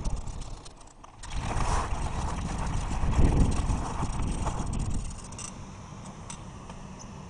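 Bicycle ride noise along a rough campsite track: a rush of noise with many small clicks and rattles. It swells about a second in and eases to a lower level after about five seconds.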